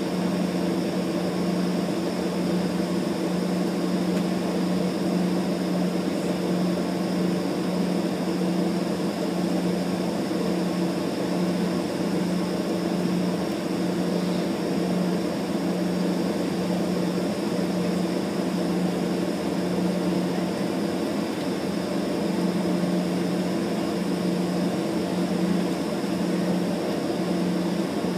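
Engines of a small regional airliner heard from inside the cabin while it taxis: a steady low hum with an even hiss above it, unchanging throughout.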